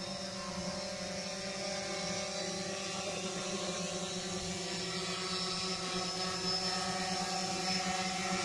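Propellers of a DJI Phantom quadcopter drone buzzing steadily in flight, with a high whine over the low hum, growing gradually louder toward the end.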